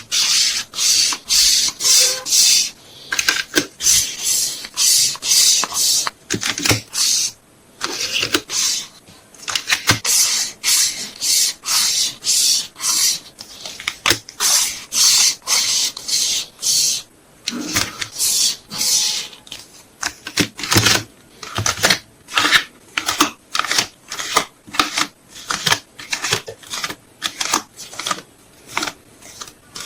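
Packing sounds from photocards being wrapped: a rapid, irregular series of short crinkling and rustling strokes as packing materials are handled.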